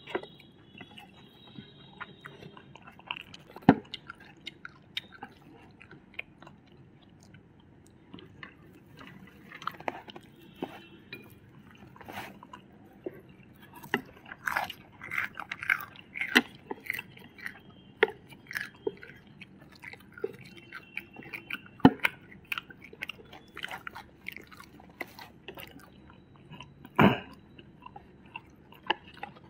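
People chewing and crunching food close to the microphone, with irregular crisp bites and a few sharp, louder clicks scattered throughout.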